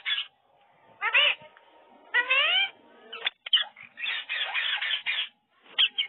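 Rose-ringed parakeet calling: a few short calls with sliding pitch, then a longer run of chatter about four seconds in.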